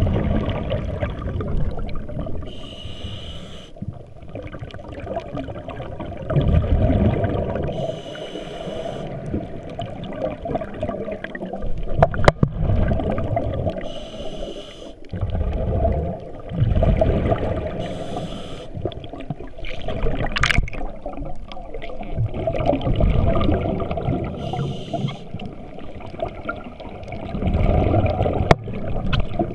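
Scuba diver breathing through a regulator underwater: a short hiss on each inhale, then a longer rush of exhaled bubbles. The cycle repeats about five times, a breath every five to six seconds.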